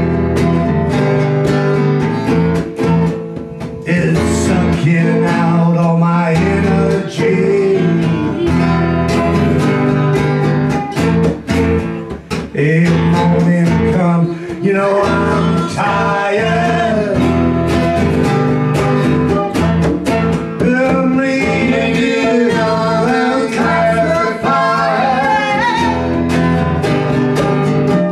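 Live band rehearsal: strummed guitars and hand-played congas, with a man singing into a microphone.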